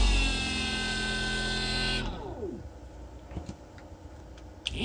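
Ebike rear hub motor spinning with no load, wheel off the ground, driven by a sine-wave controller that has self-learned its timing without hall sensors; it whines smoothly. It holds speed, winds down about two seconds in and fades away, then spins back up near the end.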